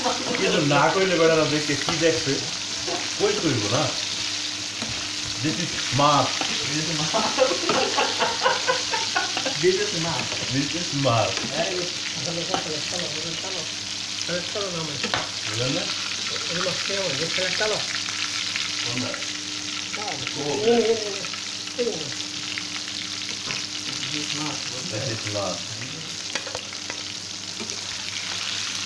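Fish pieces frying in hot oil in a pan, a continuous sizzle.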